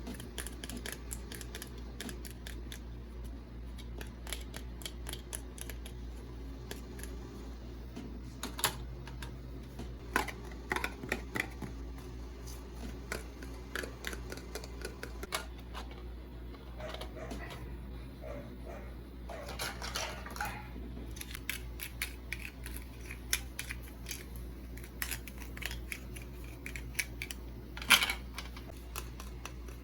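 Hands unboxing small plastic toys and packaging: scattered light clicks and taps, with short bursts of crinkling and one sharper click near the end, over a low steady hum.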